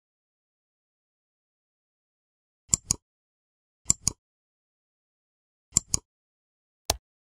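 Computer mouse clicks: three quick pairs of sharp clicks a second or two apart, then a single click near the end, with dead silence between.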